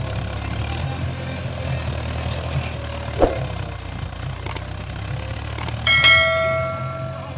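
Mahindra 575 DI XP Plus tractor's four-cylinder diesel engine running steadily under the load of a fully laden soil trolley. A few clicks are followed, about six seconds in, by a bell chime from a subscribe-button sound effect; the chime is the loudest sound and rings for about a second.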